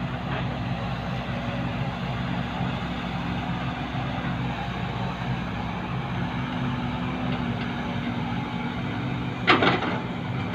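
A heavy diesel engine running steadily at a low, even pitch, with a short sharp burst of noise about nine and a half seconds in.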